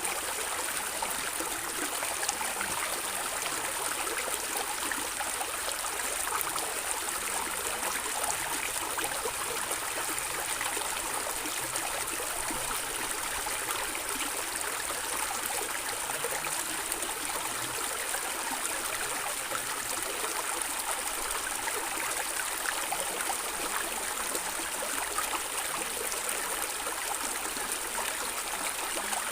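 A small stream of water running and gurgling, a steady rushing hiss with fine splashing detail that does not change.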